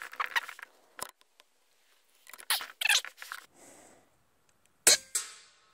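A single sharp shot from an AGT Vixen PCP air rifle firing a .22 pellet about five seconds in, with a short fading tail. Before it come small clicks and rustles as the rifle is handled on the rest.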